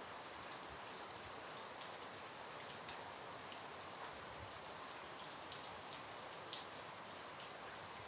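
Steady rain falling, with single drops tapping close by now and then, the clearest about six and a half seconds in.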